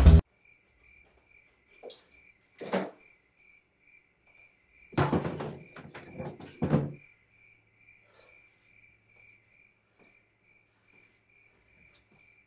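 A cricket chirping steadily in a high, evenly pulsing trill, with a few knocks and thumps like a cupboard or door being handled, the loudest cluster about five seconds in.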